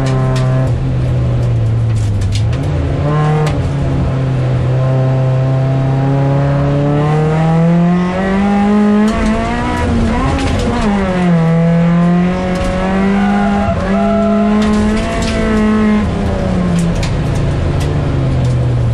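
A Ford folkrace car's engine, heard from inside the cabin, pulling hard on a dirt track. The revs climb steadily for several seconds, drop sharply once and hold high again, then fall near the end as the car slows. Short knocks and rattles come from the car over the rough track.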